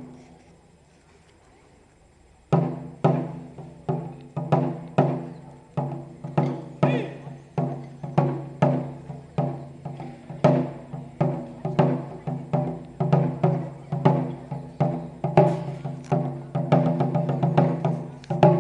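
Taiko drums struck in a rhythm: after about two and a half seconds of quiet, deep ringing drum strokes come one or two a second, with sharper clicks among them, growing faster and denser near the end.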